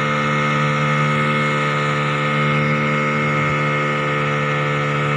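Small outboard motor running steadily under way at one unchanging pitch, pushing the boat along.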